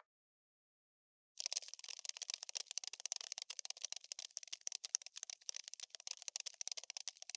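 Cockroach scuttling sound: a rapid, irregular, dry scratchy clicking of insect legs that starts about a second and a half in and runs on without a break.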